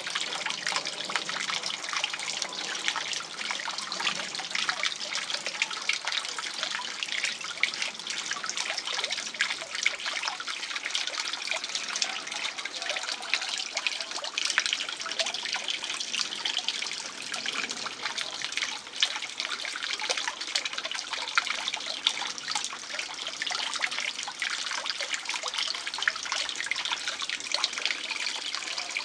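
Water trickling and splashing in a garden fish pond: a steady run of fine splashes and drips.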